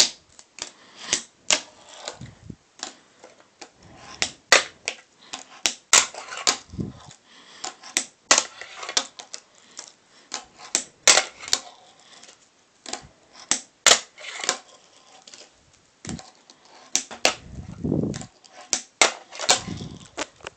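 Fingerboard deck and wheels clacking on a wooden tabletop as it is flicked, popped and landed: an irregular run of sharp clacks, some louder than others.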